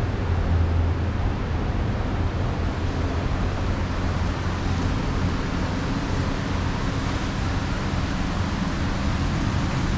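A steady low mechanical hum under a constant rushing noise, with no distinct events.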